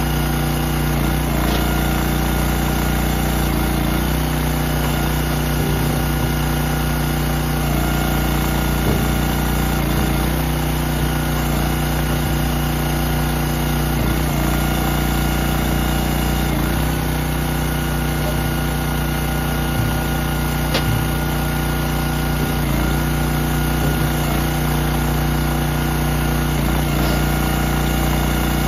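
Gasoline engine of a hydraulic log splitter running steadily. Its note shifts briefly every few seconds as the ram works through logs, with a few faint cracks of wood.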